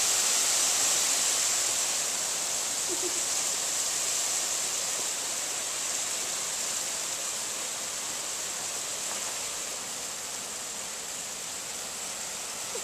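Small hail and rain falling on a concrete patio and lawn: a steady hiss that slowly gets quieter.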